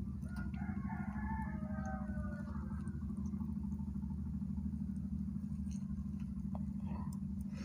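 Knife and wooden fork cutting into a large meatball, faint soft clicks over a steady low hum. A faint pitched call of several short notes sounds in the first three seconds.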